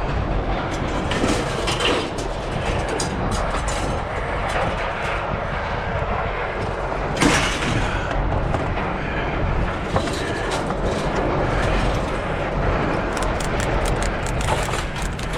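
Steady engine rumble, with a sharp metal clank about seven seconds in and a run of lighter clattering near the end, typical of scrap metal being thrown onto a pile.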